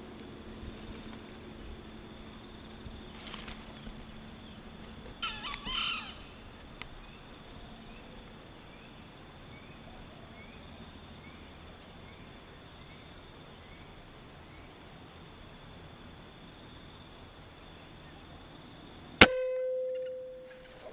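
A single sharp gunshot about nineteen seconds in, followed by a ringing hum that fades over about a second and a half. Before it, steady insect chirring, with a short burst of calls about five seconds in.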